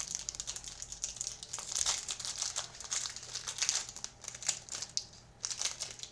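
Trading-card hanger box packaging being opened by hand: a steady run of irregular crinkling and rustling of wrapper and cardboard.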